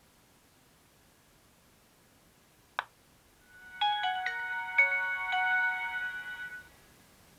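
A single click, then a Nokia 3230 mobile phone plays a short polyphonic ringtone: several bright notes struck over held tones for about three seconds before it fades out.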